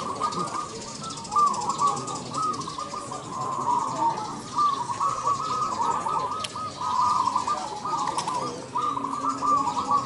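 Many caged zebra doves (perkutut) cooing together, their rolling coo phrases following one another and overlapping almost without a break.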